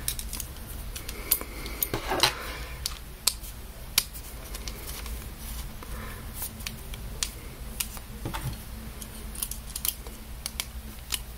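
Irregular small clicks and taps of screws, nuts and a plastic bearing being picked up and handled against a perforated metal C-channel while the bearing is fitted in place.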